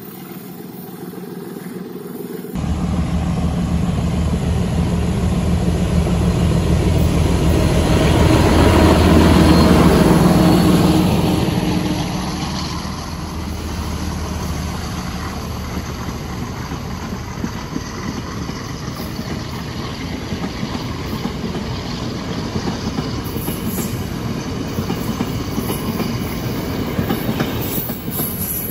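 Diesel locomotive, a Class M4, running as it approaches, getting louder and passing close at its peak about a third of the way in. Then its train of passenger coaches rolls by with a steady rumble and the clickety-clack of wheels over the rail joints.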